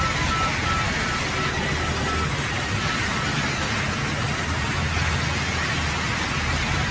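Large sawmill band saw running and cutting a slab off a log: a steady, loud mechanical noise with a low hum under a broad hiss.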